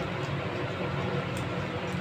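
A steady low hum with a hiss over it, and a few faint ticks.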